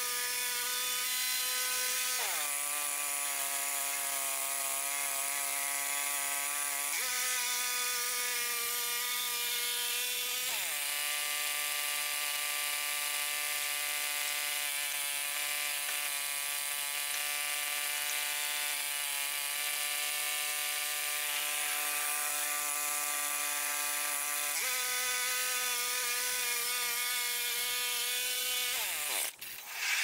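Woodland Mills HM122 bandsaw mill's gas engine running steadily with the band blade sawing a spruce log. The engine speed steps up and drops back twice, and the engine winds down and stops near the end.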